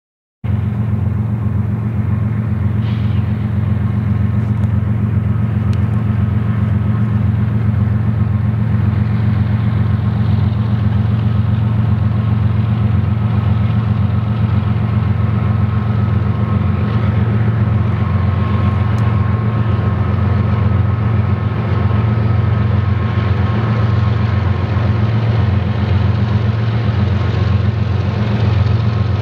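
Steady low diesel engine rumble of BNSF GE freight locomotives, starting abruptly just after the beginning, with a faint thin steady tone above it.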